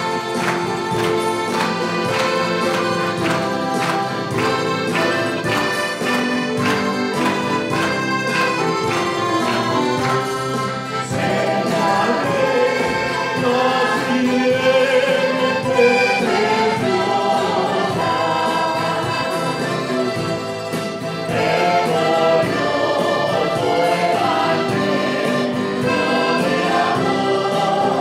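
Church band of accordion, acoustic guitar, mandolins and keyboard playing a hymn, opening with a rhythmic strummed introduction; about ten seconds in, a mixed choir joins, singing in Spanish over the accompaniment.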